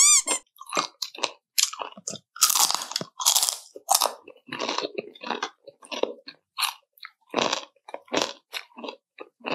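Crispy fried chicken skin being bitten and chewed: a rapid, irregular run of loud, crisp crunches, heaviest about a third of the way in.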